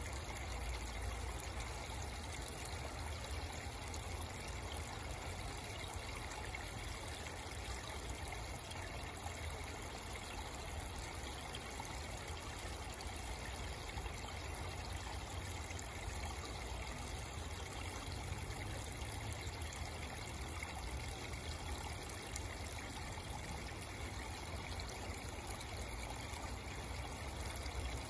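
Steady trickle of running water in a small koi pond.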